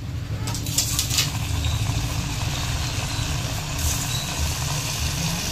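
Oil in a steel kadai starting to sizzle as two flattened chhena-dough patties for rasabali are slipped in and deep-fry, with a sharper crackle about a second in, then steady frying bubbles. A steady low hum runs underneath.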